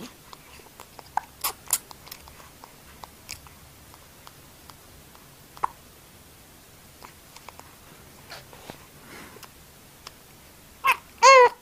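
A baby's hiccups: a few sharp, short hiccups among small clicks, then two short wavering cries near the end.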